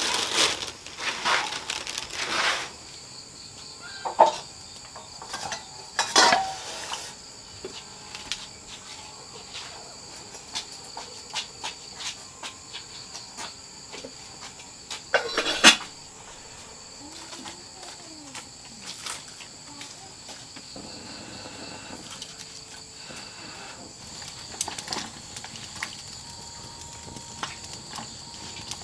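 Crickets chirring steadily on two high tones through most of the stretch. A plastic bag crinkles at the start, and a few knocks follow, the loudest a sharp clack about fifteen seconds in, as a cooking pot is handled over a wood fire.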